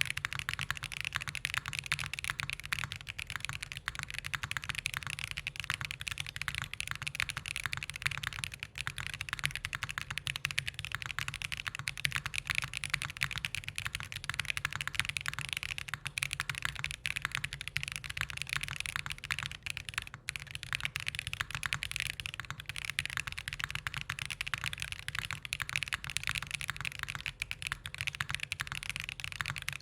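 Continuous rapid typing on an XOX70 mechanical keyboard with White Jade tactile switches on an aluminium plate, with plate foam and EST foam fitted in the case.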